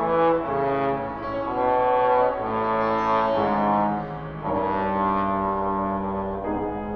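Trombone playing a slow melodic line of sustained notes with grand piano accompaniment, one note held for about two seconds in the second half.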